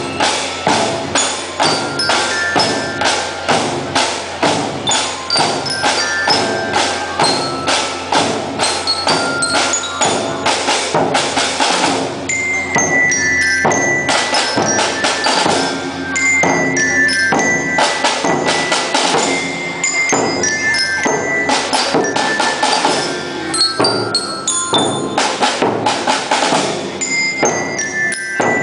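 Marching band playing: a steady, rhythmic drum beat under a melody of bright bell-like notes from mallet percussion such as a glockenspiel or bell lyre.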